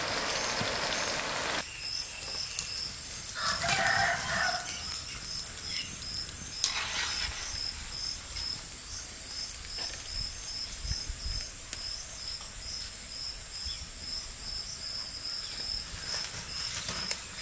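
A rooster crows once, about four seconds in, over a steady row of short high chirps repeating about twice a second.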